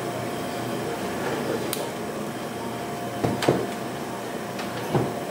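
Steady hum of the room's air handling, with a few light clicks and knocks: one near two seconds in, a pair about three and a half seconds in, and one near the end.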